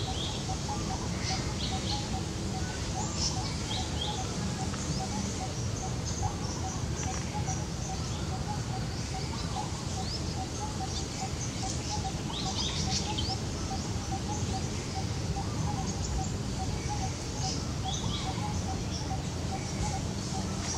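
Birds chirping: short high chirps come scattered throughout, over a steady, fast run of evenly repeated low notes and a low background rumble.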